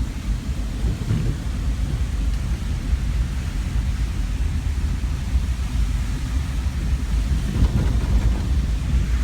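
Hurricane Matthew's strong wind buffeting the microphone: a steady, gusting low rumble.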